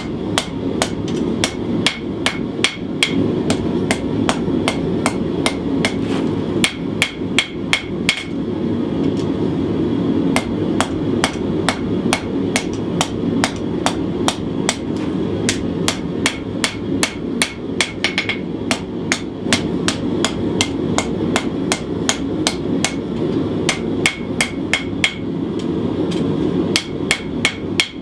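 Hand hammer forging hot 1095 steel on an anvil: quick, even blows about three a second in runs with brief pauses, each strike ringing. This is the drawing out of the knife blank's clip point. A steady low rush runs underneath.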